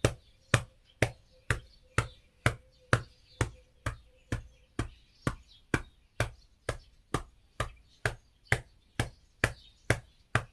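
Rhythmic hand-clapping on a person's back, about two firm slaps a second, steady throughout: chest percussion to loosen phlegm in an elderly patient with a cough who cannot bring it up.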